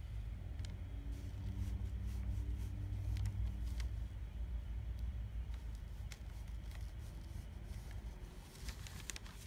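Faint scratches and light clicks of a small paintbrush dabbing acrylic paint onto a wooden board, with a cluster of clicks near the end. A low steady rumble underneath is loudest in the first few seconds.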